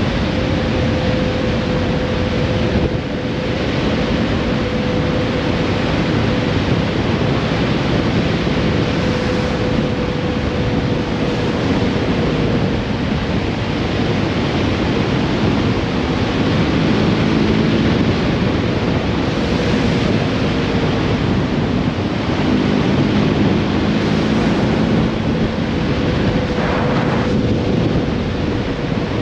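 Wind rushing on the microphone, mixed with tyre and road noise from a vehicle driving on asphalt. A faint steady whine runs underneath, fades out about halfway through and returns near the end.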